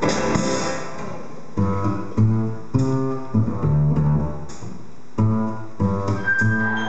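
Live jazz from piano and plucked double bass, separate notes and chords sounding about every half second to a second. A thin high held tone joins near the end.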